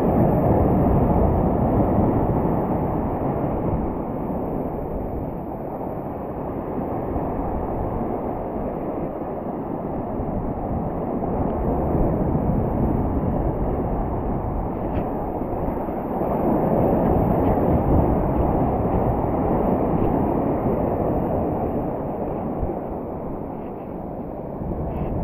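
Ocean surf washing against the rocks of a jetty, with wind buffeting the microphone, a low rumbling noise that swells and eases every few seconds.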